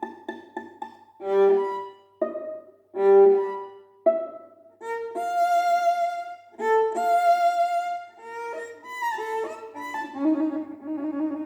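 Violin playing: short detached notes at first, then longer held notes with vibrato, and a fast repeated bowed figure near the end.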